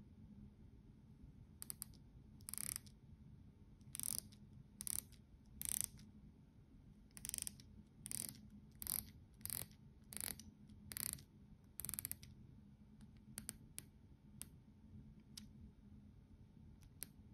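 Rotating bezel of an Emporio Armani AR11360 stainless-steel chronograph being turned by hand. Its ratchet clicks in about a dozen short runs of rapid clicks, then gives a few fainter single clicks near the end.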